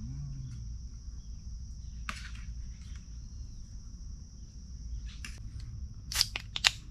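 Steady high-pitched insect chorus with a low rumble beneath it, broken by a few sharp clicks or knocks; the loudest clicks come in a quick cluster near the end.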